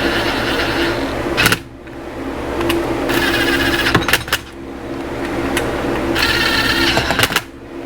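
Small electric screwdriver running in three bursts of about a second and a half each, driving in the screws that hold the oil pump on a Honda CB350 engine.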